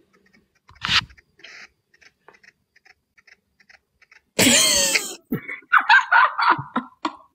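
A sharp click about a second in, then a loud, high-pitched vocal burst about four seconds in, followed by a string of short, choppy bursts of laughter.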